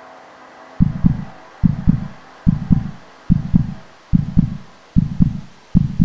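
Heartbeat sound effect: loud, low double thumps (lub-dub), about 70 beats a minute, starting almost a second in.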